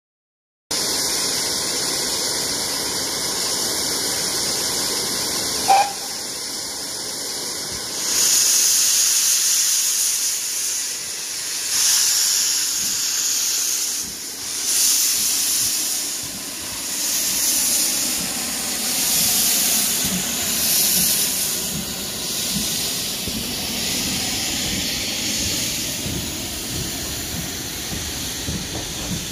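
Steam locomotive letting off steam: a steady hiss, with one brief sharp sound about six seconds in. From about eight seconds the hiss grows louder and swells and fades in slow, uneven pulses.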